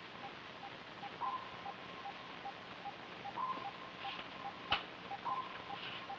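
Electronic instrument beeping of a submarine control room: a steady rapid ticking of short beeps, with a slightly higher held tone that comes in again every couple of seconds, over hiss. A single sharp click sounds about three-quarters of the way through.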